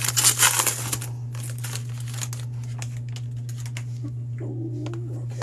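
Foil trading-card pack crinkling as it is torn open, fading after about a second into quieter rustles and light clicks of the cards being slid out and handled. A steady low hum runs underneath.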